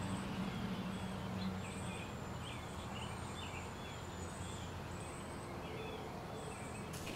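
Faint outdoor ambience: a steady background hiss with small birds chirping softly over and over, and a low hum that fades out in the first second or two.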